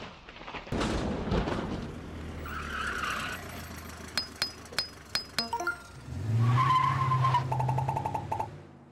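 A sound-effects sting for an animated logo. It opens with a rushing noise and low rumbles, then comes a run of about six sharp metallic clinks. Near the end a vehicle runs loudly with a squeal, then the sound fades away.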